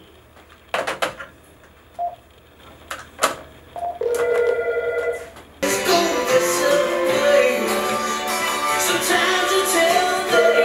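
A few light clicks, then an electronic telephone ring with a warbling tone about four seconds in. About a second and a half later loud music starts suddenly and keeps going, and the phone rings again over it near the end.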